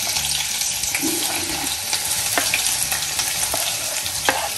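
Chopped onions sizzling in hot oil in a frying pan with a steady hiss, stirred with a wooden spoon that knocks sharply a few times.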